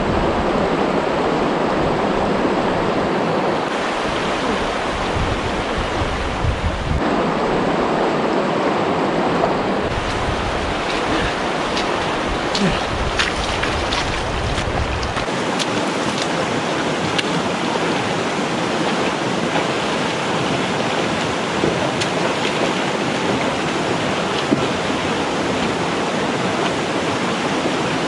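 Fast, shallow rocky stream rushing steadily over stones close to the microphone. About halfway through, a few sharp splashes and knocks come as a hiker wades across in boots.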